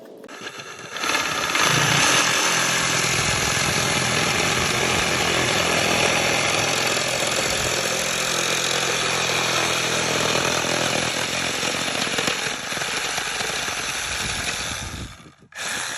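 Reciprocating saw (Sawzall) cutting through 4-inch ABS plastic drain pipe. It runs steadily for about fourteen seconds, stops, then gives a short burst just before the end.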